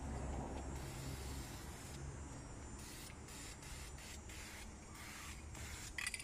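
Aerosol spray can of clear coat hissing in a series of short bursts from about three seconds in, as a coat is sprayed onto bare metal BMX handlebars. A brief sharp knock comes near the end.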